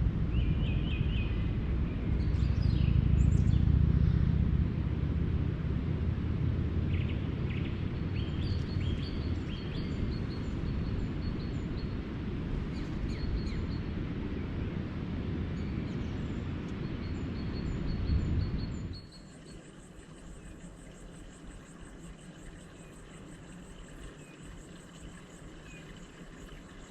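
Steady rain with a low rumble of thunder, and birds chirping over it. About nineteen seconds in it cuts abruptly to a quieter scene of birdsong over steady high-pitched tones.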